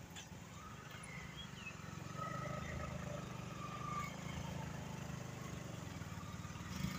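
Motorcycle engine running steadily at road speed, a low drone. Faint bird calls sound above it, one a short falling whistle about a second in.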